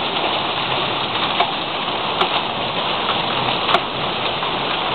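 Hail and rain pelting a wooden deck and fence in a steady clattering hiss, with two sharper clicks of single stones striking something hard.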